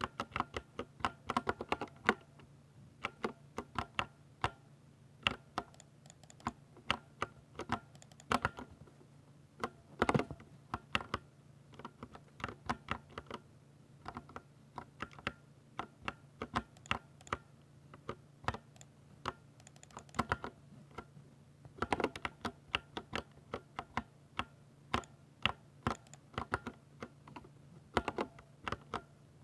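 Typing on a Ducky 60% mechanical keyboard with silver switches. Irregular runs of sharp key clacks come several a second, with short pauses between runs and one louder stroke about ten seconds in. A faint steady hum runs underneath.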